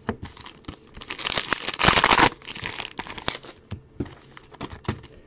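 Trading-card pack wrapper crinkling and tearing open, with small clicks of cards being handled; the loudest rustle comes about two seconds in.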